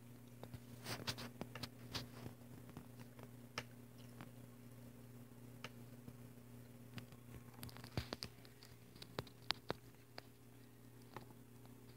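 Scattered small clicks and taps at irregular intervals, a few sharper ones around the middle and later on, over a steady low hum.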